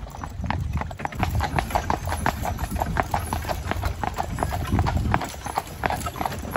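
Horseshoes striking a paved road as a horse pulls a jaunting car, a steady clip-clop of roughly three to four hoof strikes a second over a low steady rumble.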